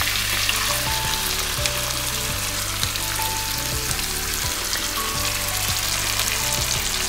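Chicken pieces and potatoes frying in oil in an aluminium kadai, a steady sizzle, as a thick ground paste is poured over them.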